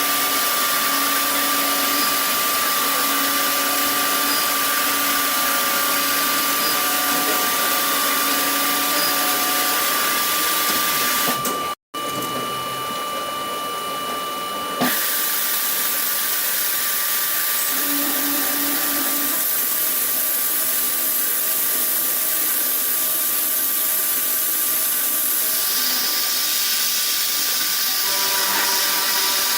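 CNC machinery running steadily: a constant hiss with a steady whine over it. It cuts out abruptly for a moment about twelve seconds in, then carries on slightly changed.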